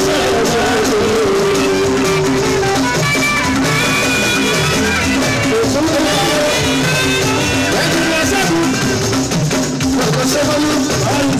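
Live music: a man singing in Yoruba into a microphone over a band with drums and shaker rattles, heard through the PA.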